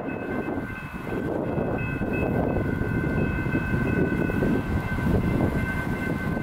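Railroad crossing bells ringing steadily over the heavy rumble of a passing train, which swells from about a second in.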